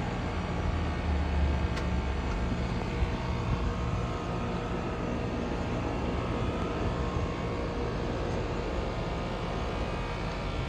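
2010 Rheem Classic heat pump outdoor unit running in its defrost cycle: a steady hiss over a low hum, the hum a little stronger between one and two seconds in.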